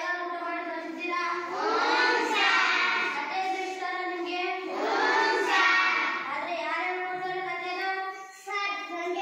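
A boy singing a song solo without accompaniment, in long drawn-out notes with short breaks between phrases.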